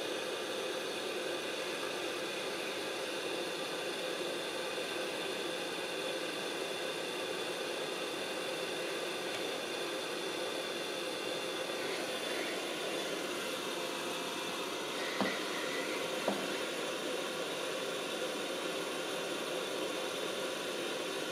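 Hot air rework gun of a YiHua 853D station blowing, a steady hiss of air from its handpiece fan as it heats a tiny surface-mount capacitor to desolder it. Two light clicks come about fifteen seconds in, a second apart.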